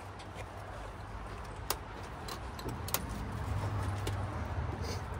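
Racing harness and helmet buckles clicking and jingling as a driver straps into a race car seat, with three sharp clicks. Underneath, a low engine rumble swells in the middle.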